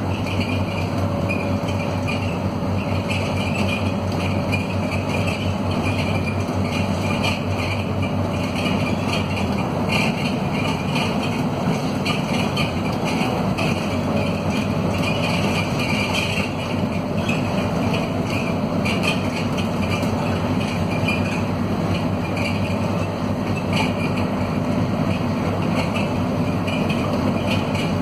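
Interior sound of a Scania K230UB city bus climbing a hill, its Scania DC9 five-cylinder diesel pulling steadily under load through the ZF Ecomat automatic. A constant rattling from the worn, poorly kept bus runs over the engine drone.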